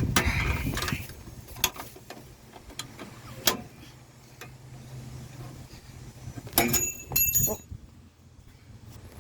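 Hand work on a truck door hinge: about a second of scraping and rustling, then a few sharp metal clicks. About seven seconds in comes a short burst of bright, ringing metal clinks, a dropped steel bolt hitting and bouncing.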